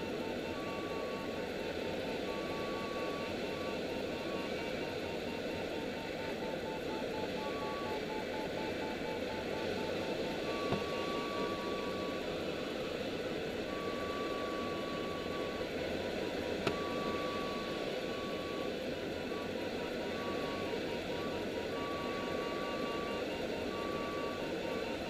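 Steady rush of airflow over the cockpit of an HpH 304S Shark sailplane in flight, with a variometer's electronic tone beeping on and off in beeps of uneven length and a fainter, faster string of short pips. Two small clicks come about halfway through and about two-thirds of the way through.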